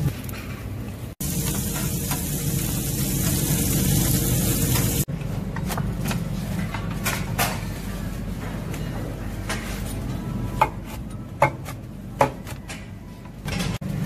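Food sizzling as a dense hiss for a few seconds, then, after an abrupt cut, scattered clinks and knocks of dishes and cutlery over a low steady hum.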